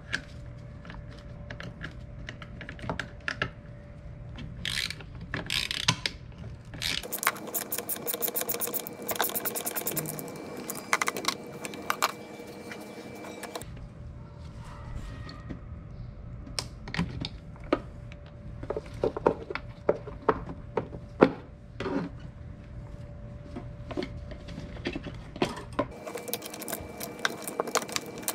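Socket ratchet wrench clicking rapidly as fasteners are turned, in a stretch in the middle and again near the end, with scattered clinks of tools and metal in between.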